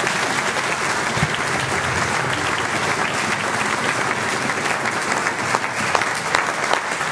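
Audience applauding, a dense steady clapping that thins near the end into a few separate claps.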